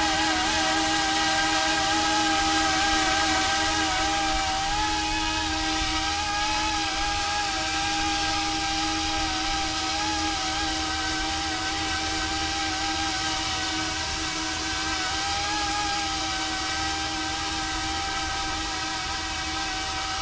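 YUXIANG F09-S Coast Guard UH-60 scale RC helicopter hovering, its electric motors and rotors giving a steady whine. The main pitch wavers slightly up and down as the rotor speed is adjusted.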